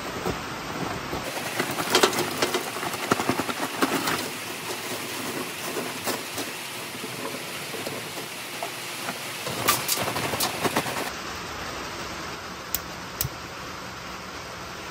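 Oak lump charcoal pouring out of a paper bag and clattering onto the metal charcoal grate of a kettle grill, with lumps knocking together for about ten seconds, over the steady hiss of heavy rain. Two sharp clicks come near the end as a lighter is sparked.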